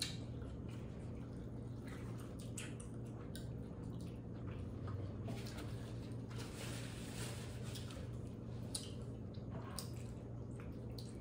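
Wet eating sounds from a saucy Cajun seafood boil: sauce-coated food squishing and small clicks as it is handled and chewed. A steady low hum runs underneath.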